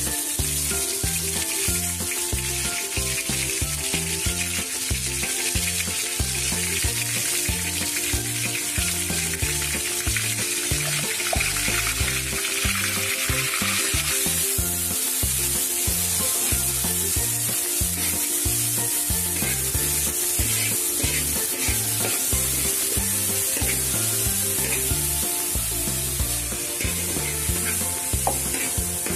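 Ground shallot, garlic and candlenut paste sizzling steadily in hot oil in a wok, with a spatula stirring and scraping it around the pan. Background music plays underneath.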